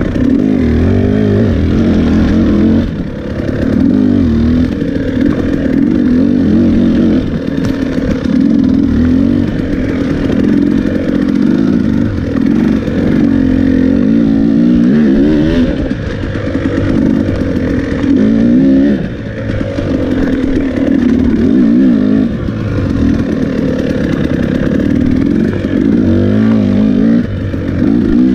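Off-road dirt bike engine running hard on an enduro trail, its revs rising and falling again and again as the rider works the throttle. The throttle is shut off briefly a few times.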